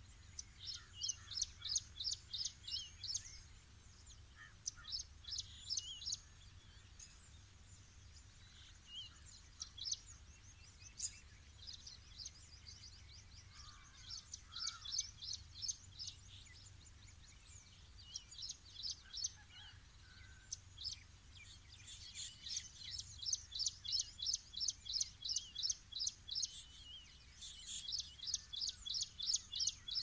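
Birds chirping in repeated runs of short, quick high notes, about five a second. The runs come and go and are busiest in the last third, over a faint low background rumble.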